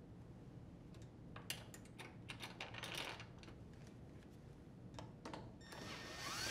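Faint, scattered light clicks and taps of small metal parts being handled. Near the end a power screwdriver spins up to drive a screw into the washer's rear panel bracket.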